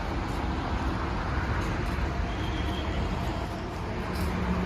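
Steady road and traffic noise: an even, low rumble of moving vehicles with no distinct engine note.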